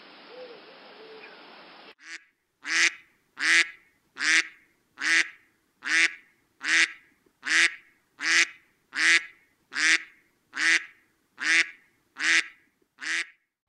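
An animal calling over and over: about fifteen short, harsh calls at an even pace, a little under a second apart, the last few slightly weaker. Before them comes a steady hiss for about two seconds that cuts off abruptly.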